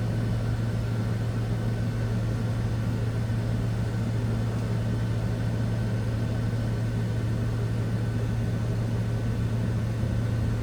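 Walter Helitronic Power CNC tool and cutter grinder's spindle running at its maximum speed of 8,000 RPM, a steady, even hum.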